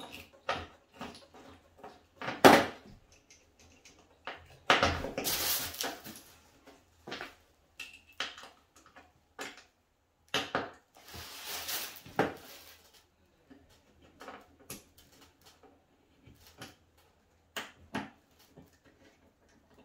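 Metal bolts and an Allen key being handled and worked into a wooden table frame: scattered light clicks and knocks, one sharp loud knock about two and a half seconds in, and two longer scraping stretches around five and eleven seconds in.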